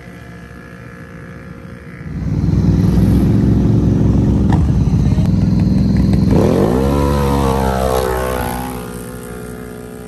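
Quad ATV engines at full throttle in a dirt drag race. The sound jumps suddenly to loud revving about two seconds in, the engine pitch climbs steeply around six seconds as they accelerate, and it then fades as they pull away.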